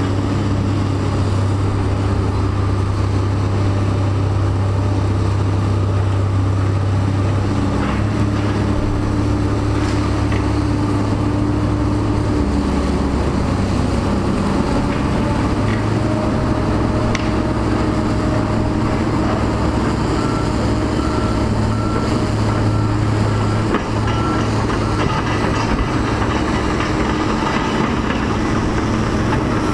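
Diesel engines of tracked demolition excavators running under load, a steady low drone whose pitch shifts now and then, with a few faint clicks and knocks.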